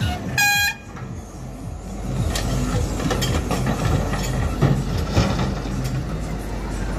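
Tata Hitachi Zaxis 120 excavator running under load as it swings its bucket and dumps murrum into a tipper truck, with knocks and rattling of soil and stones hitting the truck's steel body around the middle. A short, loud, high-pitched beep comes about half a second in.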